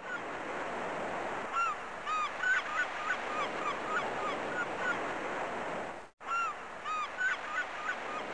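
A flock of birds giving many short honking calls over a steady rushing wash. The sound cuts out briefly about six seconds in and the same calls start again, as a looped sound effect does.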